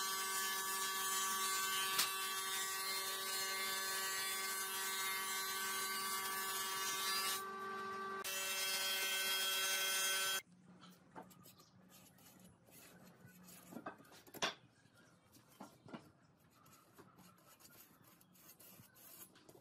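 An electric power tool's motor running steadily with a hum and hiss, its pitch shifting twice as the load changes, then cutting off about ten seconds in. Afterwards only scattered light taps and clicks of hand work.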